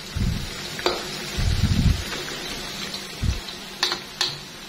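Battered potato strips deep-frying in hot oil in a metal wok, a steady sizzle, while a metal ladle stirs them and clinks against the wok three times.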